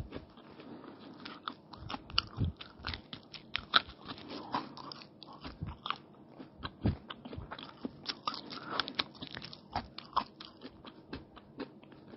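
A person chewing mouthfuls of egg roll filled with raw onion and cucumber: many short, sharp mouth clicks and bites at an uneven pace.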